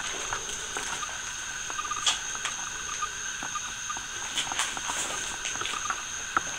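Rustling and scattered sharp ticks of footsteps and movement through dry leaves and brush, over a steady high-pitched drone with short trills now and then.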